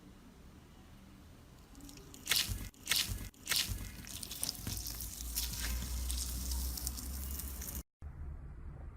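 Slime being squished and worked by hand: a few sharp, wet crackles and pops a couple of seconds in, then steady sticky squishing.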